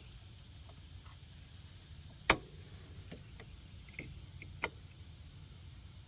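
A sharp metallic clank that rings briefly, about two seconds in, followed by four or five lighter clicks and taps: metal tools or parts being handled during work on an ATV's CV axle.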